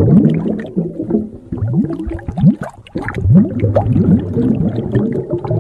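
Underwater bubbling sound effect: a dense stream of bubbles blooping, each bloop a short, quick rise in pitch.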